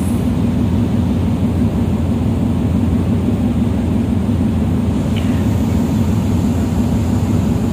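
Steady low rumble of a passenger ferry's engines, heard from the deck as the ship comes in to berth.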